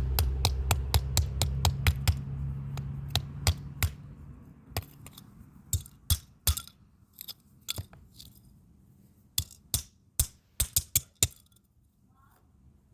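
Sharp clicks and snaps as the input pins of an RFID lock's board are broken off, about four a second at first, then sparser, stopping about eleven seconds in. A low hum fades out over the first few seconds.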